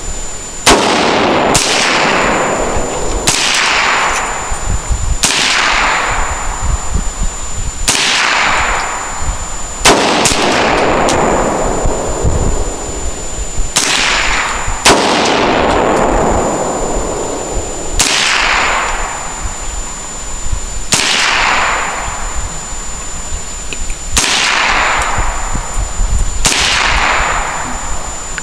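AR-15 rifle fired in single shots, about a dozen spaced one to three seconds apart, each with a long echoing decay.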